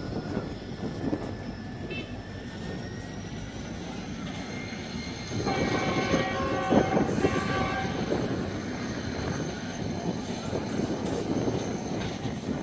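Freight wagons rolling slowly past with a steady rumble and thin, high wheel squeal. About five seconds in, a locomotive horn sounds for roughly two and a half seconds.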